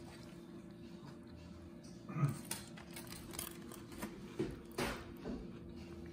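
Quiet clicks and taps of chicken wings being handled and set on a ceramic plate, starting about two seconds in, with a few short low whine-like sounds among them.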